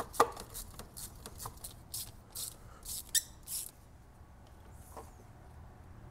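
Hand tools and engine parts being handled under a car's hood: a sharp knock just after the start, then a run of irregular light clicks and rattles for about three and a half seconds, and one more click about five seconds in.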